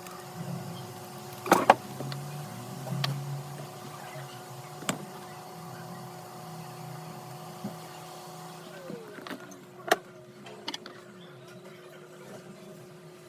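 Steady hum of electric bench equipment, with one tone dropping in pitch and ending about nine seconds in. A few sharp clicks of small metal tools sound over it, the loudest a double click in the second second.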